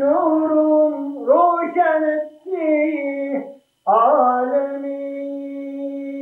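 One voice singing unaccompanied in slow, ornamented phrases with long held notes. After a short break a little past halfway, it holds a single long steady note.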